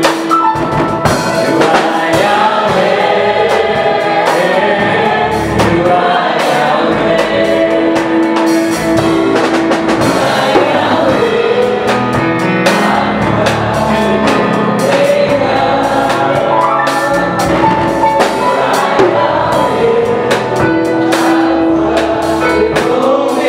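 Gospel worship song: several voices singing together over drums.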